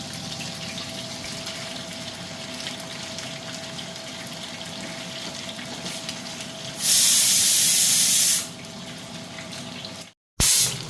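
Kitchen tap running into a sink in bursts: a loud, even gush of water that starts and stops abruptly, once for about a second and a half past the middle and again briefly near the end. Between bursts a quieter wash of noise and a faint steady hum.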